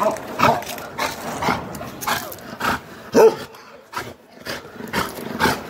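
Bakarwal dog barking over and over, about two barks a second, with a short pause a little past halfway.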